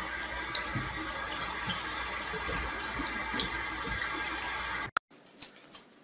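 Bathroom sink tap running, water pouring steadily into the basin with a few small knocks and splashes. It cuts off suddenly about five seconds in, leaving only a few faint taps.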